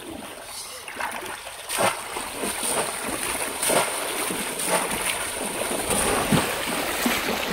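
Repeated splashing of shallow river water as a bamboo polo plunge-basket trap is thrust down into the water and lifted again, with sloshing from wading. Several separate splashes come a second or two apart.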